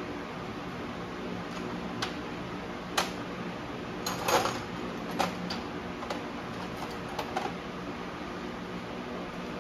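Metal clinks and knocks of hand tools and engine parts while a connecting rod is pulled from an engine, with a short rattling cluster about four seconds in. A steady hum runs underneath.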